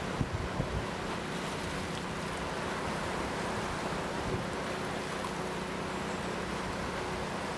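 The swollen DuPage River in flood, a steady rush of fast water, with a few low bumps on the microphone about half a second in.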